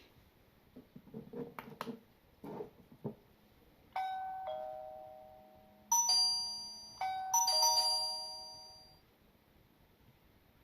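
A few clicks and knocks, then a wireless video doorbell's electronic chime plays a multi-note ding-dong tune. Its notes come in several steps and each rings and fades away.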